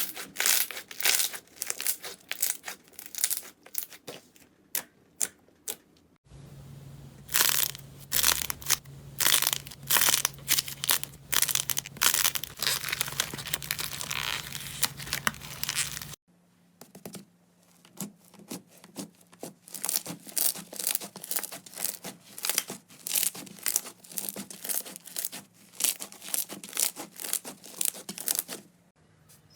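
Slime being squeezed and pressed by hand: rapid series of sticky pops and crackles, in three separate clips that cut abruptly about six and sixteen seconds in. The middle clip has a steady low hum under the pops.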